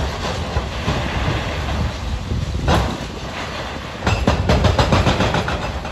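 Demolition machinery at work: a steady low engine rumble under crunching and clattering of breaking masonry and rubble, with a sharp crash midway and a run of fast, heavy clattering near the end.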